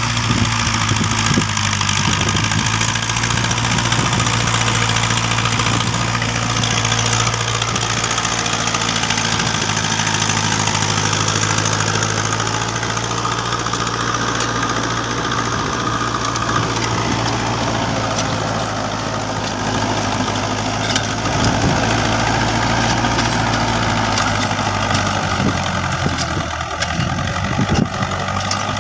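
Mahindra 575 tractor's diesel engine running steadily under load, pulling a 7-foot Shaktiman rotavator through dry field soil. The tractor handles the 7-foot rotavator well without straining.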